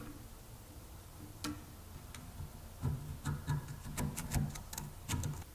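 A screwdriver tip clicking and scraping against the painted metal ball joint of a 1950s lamp arm. A couple of sharp clicks come about one and a half seconds in, then a quick run of clicks and light knocks over the next two seconds.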